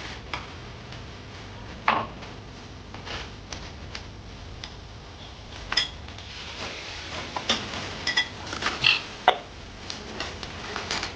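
Kitchenware clinking and knocking: utensils striking bowls and pots in irregular, scattered clinks, some ringing briefly, more frequent in the second half.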